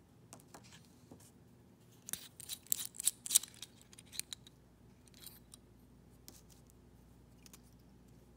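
Small metal pen parts clicking and scraping by hand, with a dense run of sharp clicks for about two seconds in the middle. It is a titanium bolt-action pen being taken apart and its ink refill swapped.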